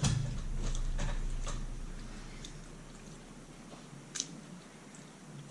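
Someone chewing a burger with a few short, soft mouth clicks, over a low rumble that fades during the first two seconds.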